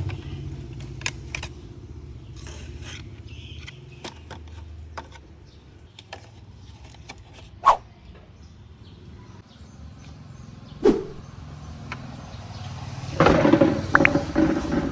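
Scattered light clicks and taps over a low steady hum, with two sharper knocks partway through and a louder stretch of clattering and rustling near the end.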